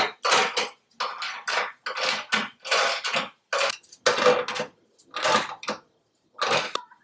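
Ratchet wrench being worked back and forth on the bumper bolts, a short burst of metallic clicking with each stroke, about two strokes a second, slowing near the end.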